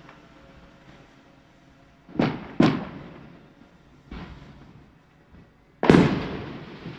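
Fireworks going off around a neighbourhood at night. Two sharp bangs come close together about two seconds in, a weaker one follows around four seconds, and the loudest comes near six seconds. Each bang trails off in a fading echo, with a few faint distant pops near the end.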